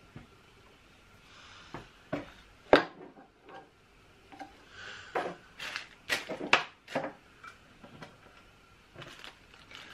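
Scattered clinks and knocks of small metal tools and parts being picked up and set down on a workbench, the sharpest knock about three seconds in.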